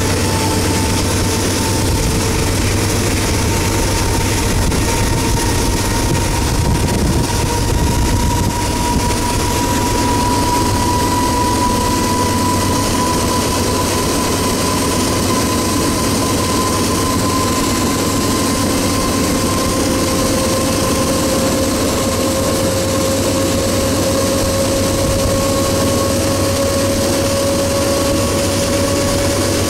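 Norfolk Southern GE diesel locomotives under way, heard from a vehicle pacing them: a steady, loud engine drone with a thin whine that slowly rises in pitch.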